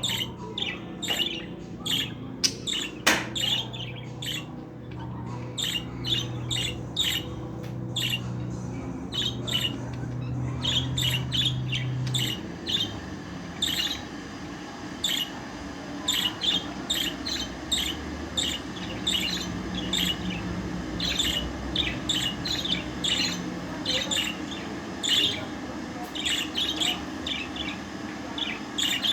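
Female budgerigar chirping: quick short chirps and squawks, several a second, kept up throughout. A steady low hum runs underneath for the first twelve seconds or so.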